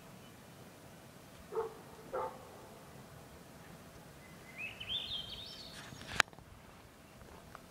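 Two short animal calls about half a second apart, then a run of high chirps rising in pitch over about two seconds, cut off by a sharp click.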